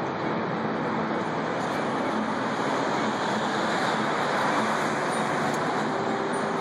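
Steady, dense background din with a few faint steady tones in it, unbroken and even in level throughout.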